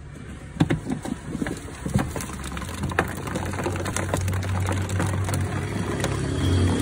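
Plastic storage tub being unclipped and its lid lifted off: a string of sharp clicks and knocks in the first few seconds. A steady low hum then comes up and carries on.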